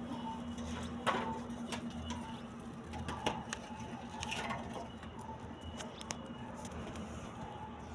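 Rabbits munching chopped cabbage leaves: scattered crisp crunches and clicks at irregular intervals, the sharpest about a second in and about three seconds in, over a steady low hum.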